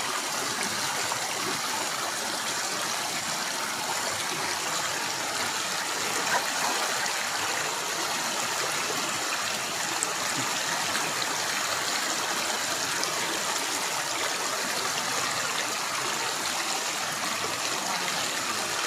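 River water running steadily, an even rushing flow with no break.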